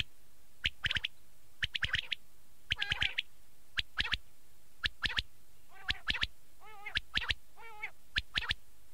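Quail calling over and over: short sharp notes in groups of two or three about once a second, then from about six seconds in several brief wavering, nasal-sounding calls.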